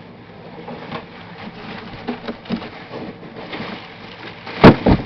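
Handling noise from the salon hood dryer being moved about: light rustling and small clicks, then two loud knocks close together near the end.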